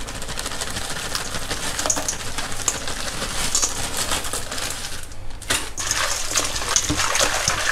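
Ice cubes tumbling from a plastic bag and clattering into a stainless steel bowl of salted shrimp, then clinking and rattling against the bowl as hands work them through the shrimp. There is a short lull about five seconds in.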